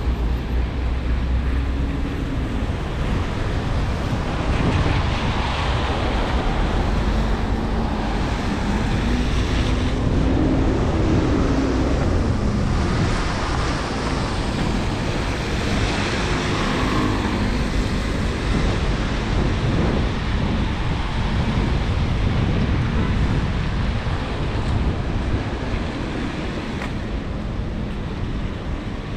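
Busy city street ambience: a steady wash of road traffic and tyre noise on wet pavement, with a few faint engine tones rising and falling as vehicles pass in the middle.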